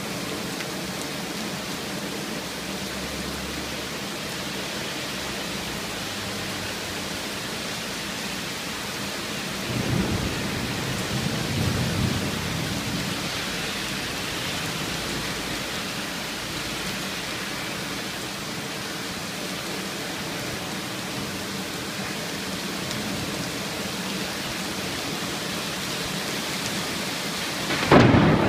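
Heavy rain pouring steadily, with two low rumbling swells about ten and twelve seconds in and a sudden louder burst near the end.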